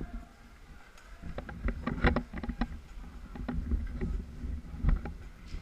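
Irregular clicks and knocks, a few a second, over a low rumble that starts about a second in.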